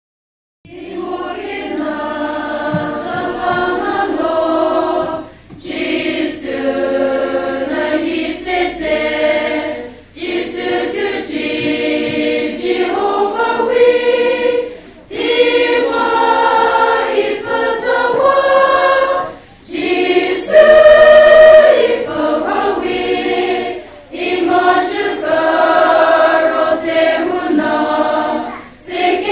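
Women's choir singing a Christian song about Jesus in the Pochury Naga language, in phrases of about four to five seconds with short breaks between them.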